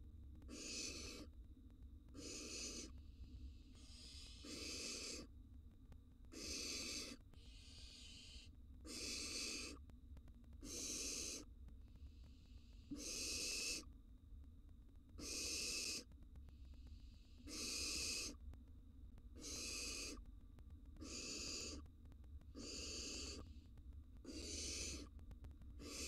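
Young barn owl giving its hissing, rasping begging call over and over, each call under a second long, about one every two seconds.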